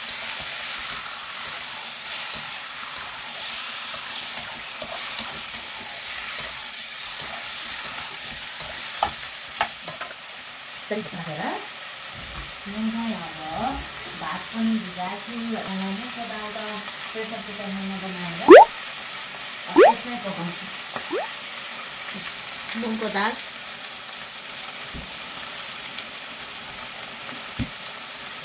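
Onions frying in hot oil in a pan, a steady sizzle, stirred with a spatula. In the middle stretch the spatula squeaks and scrapes against the pan, the sharpest scrape about eighteen seconds in.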